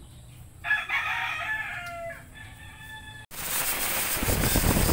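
A rooster crows, one long call starting just under a second in. About three seconds in it cuts to an electric drill boring into a PVC pipe, a loud steady grinding that builds toward the end.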